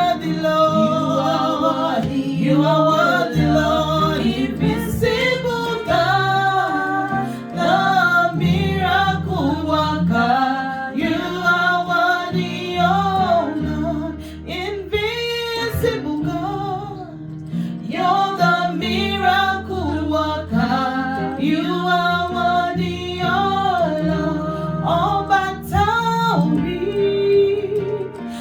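Worship song: a woman singing a melody over instrumental backing with a sustained bass line.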